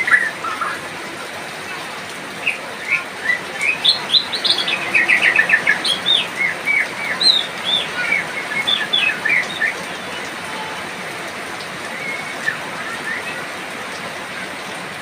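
White-rumped shama singing a string of short whistled notes, with a quick rapid run of notes partway through, over a steady hiss of falling rain. The song stops a few seconds before the end, leaving the rain.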